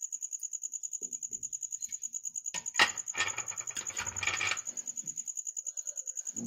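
Aluminium idli plates clinking against each other and the idli stand as they are handled: a sharp metal clink about two and a half seconds in, then a second or so of rattling. A steady, fast-pulsing high tone runs underneath.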